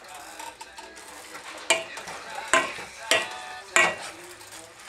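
Ground beef and sausage sizzling as they brown in a stainless steel pot while a black plastic meat chopper stirs and breaks up the meat. The tool knocks against the pot four times in the second half.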